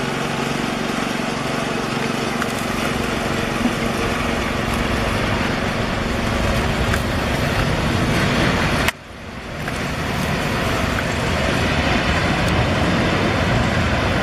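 Airbus A330 jet engines on landing and rollout: a steady rushing noise that grows slightly louder, drops away abruptly about nine seconds in, then swells back.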